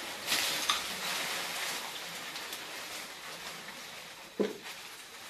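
Wild elephant moving through garden shrubs: leaves and branches rustling and crackling, with one short low thump about four seconds in.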